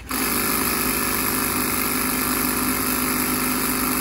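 Portable air compressor running steadily, a constant motor hum with a hiss over it, pumping air into a dirt-bike tyre's inner tube.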